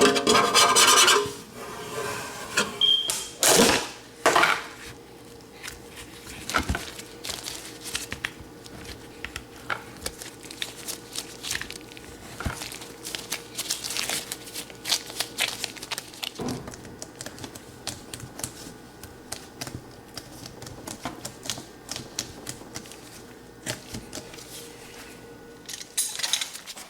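Old plumber's putty being scraped off a sink's disposal flange for about the first second, then a long run of light, irregular clicks and taps of metal parts and tools being handled at the sink. A single short high beep sounds about three seconds in.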